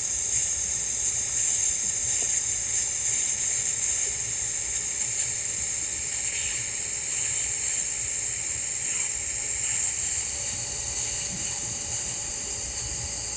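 TIG welding arc on stainless steel, a steady even hiss, as 308L filler rod is dabbed into a T-joint fillet weld at 136 amps.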